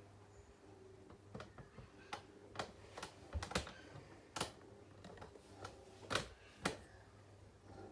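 A series of irregular sharp clicks and taps, about a dozen, over a faint steady low hum.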